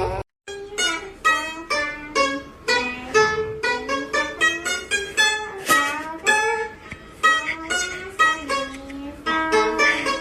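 Music: a plucked string instrument plays a bouncy melody of short, quick notes, starting just after a brief silent gap.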